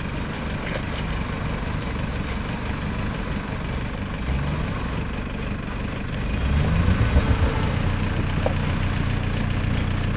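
Lifted off-road SUV's engine running at low revs as it holds a front tire against a rock ledge, then throttled up about six seconds in and held at a louder, steadier note as it works to climb.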